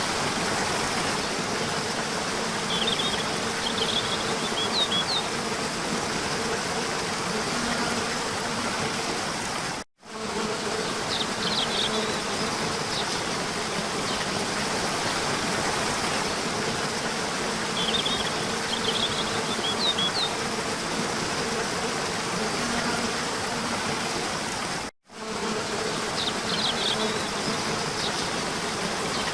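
Steady rush of a gently falling waterfall, with short high bird chirps coming in small bursts four times. The sound cuts out completely for an instant twice.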